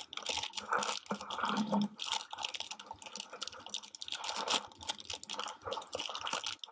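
Metallic foil blind-bag wrapper crinkling and crackling as hands tear it open and work the toy out, in quick irregular crackles throughout.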